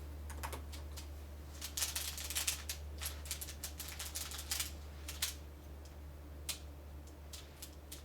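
X-Man Bell Pyraminx being turned rapidly by hand: its plastic pieces click and clatter, in dense bursts about two seconds in and again around four seconds. A steady low hum runs underneath.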